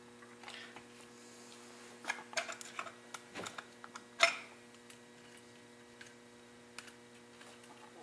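Screwdriver working the cover screw of a Folger Adam 80 series detention lock, giving scattered small metallic clicks and scrapes against the steel case, the sharpest about four seconds in. A faint steady electrical hum lies underneath.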